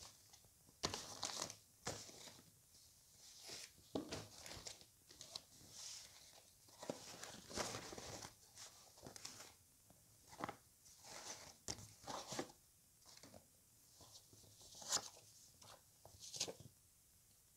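Plastic packaging and T-shirt fabric rustling and crinkling as the shirt is unfolded and handled, in faint, irregular short bursts.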